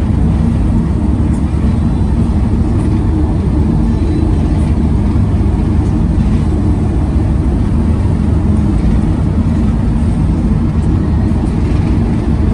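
Campervan driving along the road: steady engine and road noise, a continuous low rumble with a faint hum.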